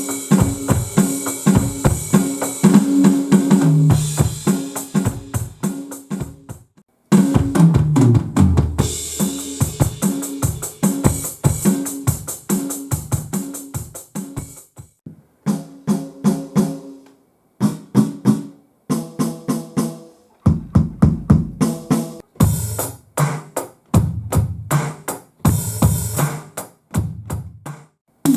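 Kit sounds from a Roland TD-17 electronic drum module, played as short grooves and fills with bass drum, snare and cymbals. There are several separate passages, one kit after another, with short silent breaks between them.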